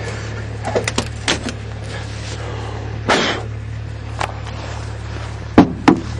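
Footsteps crunching through fresh snow, then a rustle and sharp knocks of a car door being opened and someone climbing in, with two loud knocks near the end. A steady low engine hum, the diesel left idling, runs underneath.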